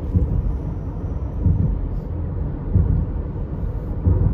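Low road and engine rumble inside a car's cabin at highway speed, with uneven low thumps.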